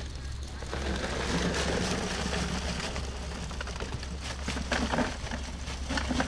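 Live crawfish rustling and clicking in a mesh sack as it is lifted and emptied into a plastic cooler, the shells pattering into the bin more densely toward the end, over a steady low hum.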